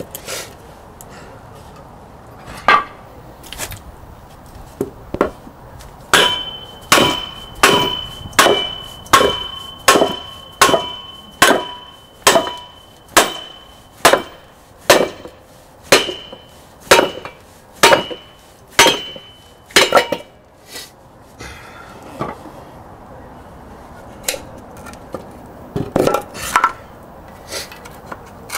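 Hammer blows driving a rust-seized wheel hub assembly out of its mounting. A few single blows, then a steady run of strikes, nearly two a second, from about six to twenty seconds in, each with a short metallic ring, then a few more scattered blows.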